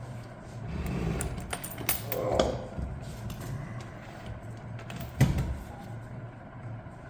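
Metal clunks and scraping as a heavy transmission case is handled and set up on end, with a short metallic ring about two and a half seconds in and a sharp knock about five seconds in, over a steady low hum.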